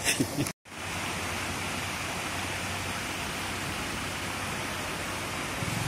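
Steady, even rushing noise outdoors beside the water, with a few brief handling knocks just before a short cut near the start.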